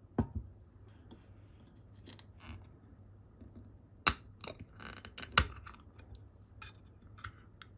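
Aluminium drink can set down with a knock on a wooden table, then its ring-pull tab lifted and pried open with a few sharp clicks and a crack, about four to five and a half seconds in. Small tapping clicks from the tab and fingers follow.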